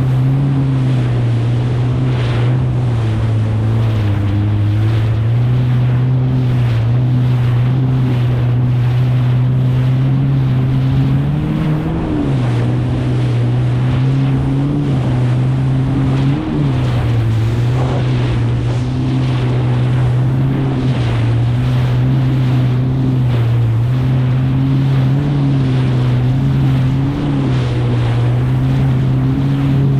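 Kawasaki STX 160X jet ski's four-cylinder four-stroke engine running at a steady cruise through choppy water, its pitch wavering and dipping a few times, with a constant rush of water and wind.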